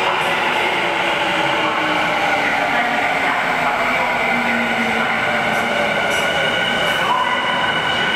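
Tokyu 5050 series electric train running through an underground station: a steady rumble with motor whine, one tone falling slowly in pitch as the train slows.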